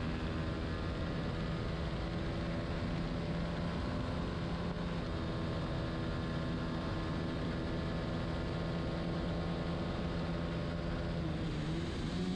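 Racing motorcycle engine running at steady revs on a straight under wind noise, its pitch dipping slightly near the end as the throttle is eased.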